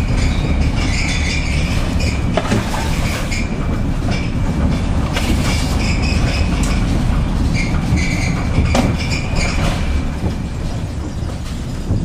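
Van driving, heard from inside the cab: steady engine and road noise with a few sharp knocks and rattles.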